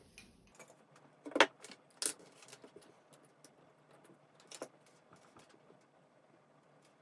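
Scattered clicks and light rattles of small electrical parts being handled while a wall push-button is wired, with two sharp clicks about a second and a half and two seconds in and another near the middle.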